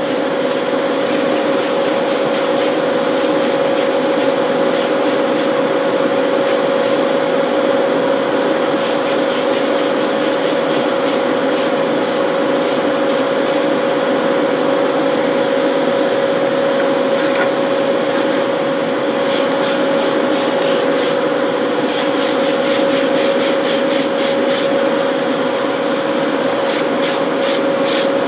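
Aerosol spray-paint can hissing in clusters of short, rapid bursts as a final colour coat goes on. Under it runs the steady whir and hum of a hobby spray booth's exhaust fan.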